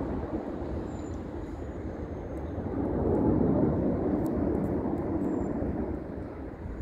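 Blue Angels jet aircraft passing overhead: a rumbling jet roar that swells to a peak about three seconds in, then fades.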